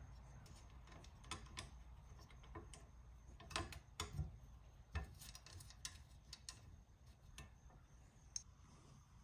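Faint, irregular light clicks and taps from fingers handling and rubbing a Corvette's fuel filler door, with a few sharper knocks between about three and a half and five seconds in.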